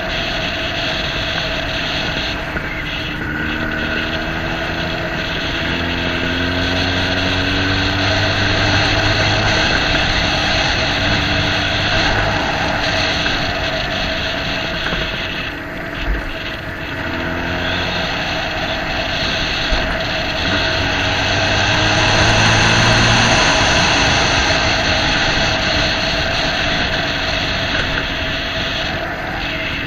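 Vehicle engine running under way, its pitch climbing and dropping back several times with the throttle, over steady road and wind noise.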